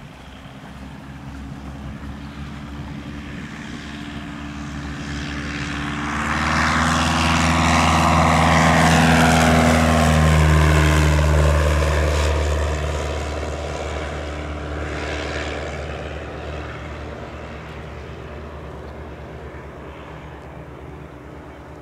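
Piper L-4 Grasshopper's small four-cylinder piston engine and propeller at full power for a go-around. The sound grows loud as the plane climbs past close by about ten seconds in, its pitch drops as it goes by, and it then fades as the plane climbs away.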